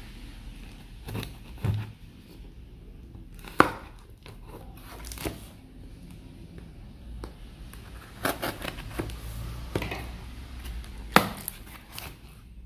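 A knife slitting the packing tape on a cardboard shipping box, with the tape and cardboard rustling and tearing as the flaps are pulled open. A couple of sharp knocks stand out, about four seconds in and near the end.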